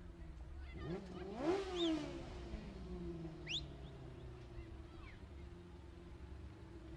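Race car engine revving up once about a second in and dropping back down, over a steady low engine hum.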